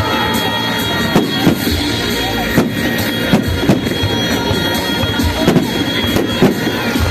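Fireworks shells bursting in a rapid, irregular series of bangs, mixed with music playing.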